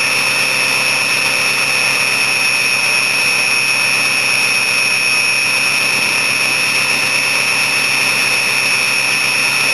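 2003 Ford 6.0L PowerStroke V8 turbodiesel running steadily at cold-start high idle, heard at the tailpipe. A steady, high-pitched turbo whistle sits over the exhaust note.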